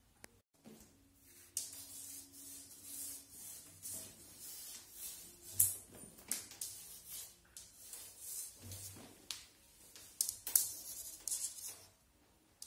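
Kittens scrambling and pouncing at a feather wand toy: irregular rustling and scratching with a few sharp taps, the loudest about halfway through and near the end.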